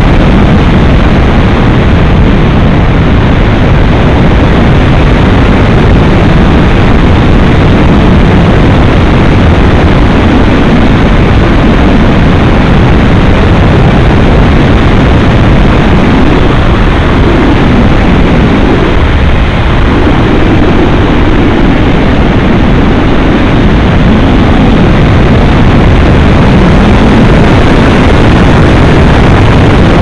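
Loud wind rush of airflow over a model thermal glider and its onboard camera's microphone in flight, a steady roar with no clear motor tone, briefly easing about twenty seconds in.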